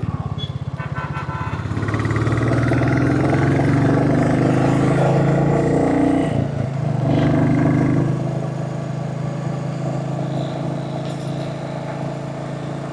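Royal Enfield Classic 350's single-cylinder engine running under way, heard from a helmet-mounted camera: a weaker, pulsing note near the start, then the pitch climbs as it pulls away. There is a brief drop about six seconds in, then a steady run that slowly eases toward the end.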